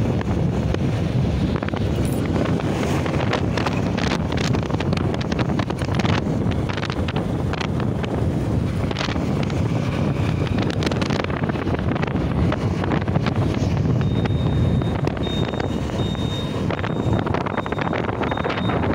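Wind buffeting the microphone over the steady engine and tyre noise of a motorcycle being ridden at a constant speed.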